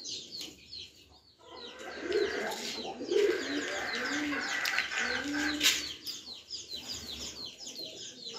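Pigeons cooing in low, repeated rounded notes, with small birds chirping. There is one sharp click a little past the middle.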